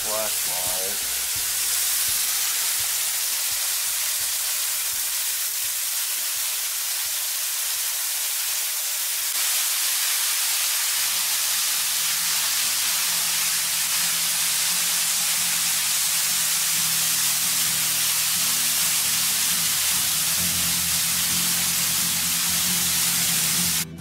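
Waterfall: a steady hiss of falling water that changes about ten seconds in to a brighter rush with a deeper undertone beneath it.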